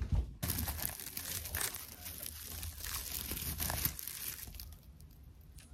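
Close rustling and crinkling from a hand-held phone being handled against its microphone, dying down about four and a half seconds in.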